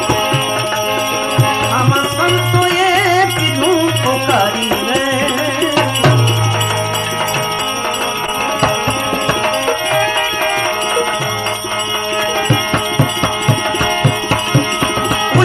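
Gujarati devotional bhajan music between sung lines: a wavering melody over sustained tones, with drum strokes and jingling percussion keeping the beat, the strokes denser in the second half.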